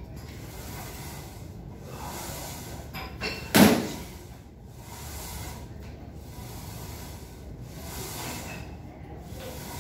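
Steady background noise with one short, loud thud about three and a half seconds in, just preceded by a faint click.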